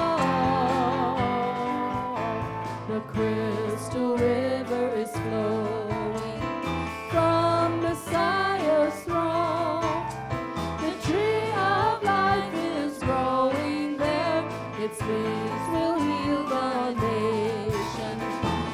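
Worship music: a singing voice with vibrato over instrumental accompaniment with a beat.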